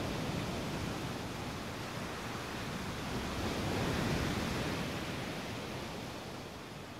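A soft, even rushing noise with no distinct events, swelling to its loudest about four seconds in and then slowly fading.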